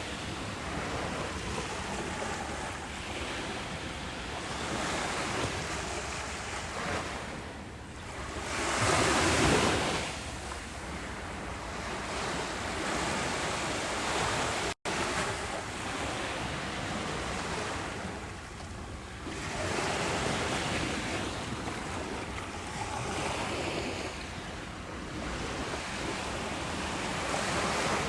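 Ocean waves breaking and washing in, a steady surf noise that swells and ebbs, the loudest surge about nine seconds in. The sound cuts out for an instant about halfway through.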